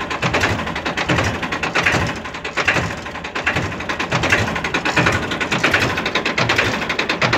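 Powertrac tractor's diesel engine idling just after starting: a steady rapid clatter with a low throb repeating about once a second.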